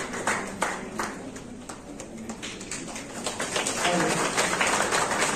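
Scattered hand clapping from a small crowd, thinning out after about a second and picking up again near the end, with some voices mixed in.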